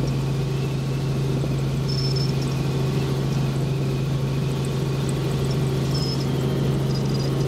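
Drone's motors and propellers humming steadily at one constant pitch, with a few faint short high chirps now and then.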